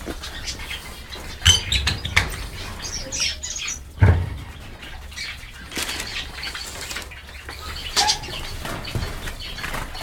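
A mixed flock of small aviary finches chirping and calling in short notes, with wings fluttering as birds fly about. A few sharp louder knocks cut in, the strongest about four seconds in.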